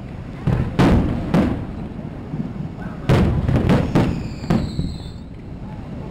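Fireworks shells bursting in a series of sharp booms, a few about a second in and another cluster from about three to four and a half seconds in, each with a rumbling tail. A thin high whistle sounds in the middle of the second cluster.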